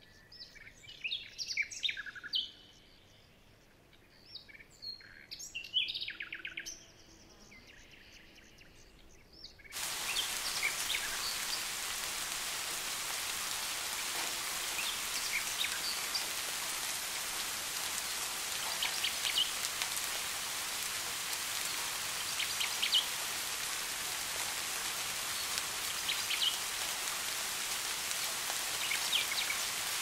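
Birds chirping in short bursts over quiet for the first several seconds, then steady rain suddenly starts about ten seconds in and keeps falling, with a few faint bird chirps over it.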